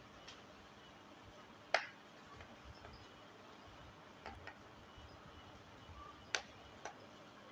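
Scattered sharp clicks and taps, about five in all, over a faint hiss, from small cable connectors and wires being handled during wiring. The loudest clicks come a little under two seconds in and about six seconds in.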